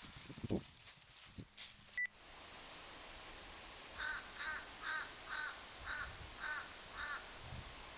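Footsteps and rustling on a trail. After a sudden cut, a bird gives about eight harsh calls in quick succession, roughly two a second, over a steady faint hiss.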